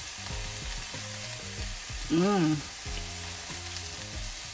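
Kale sizzling faintly in olive oil in a still-hot frying pan, its burner off. About two seconds in comes one short rising-and-falling 'mmm' from a person tasting it.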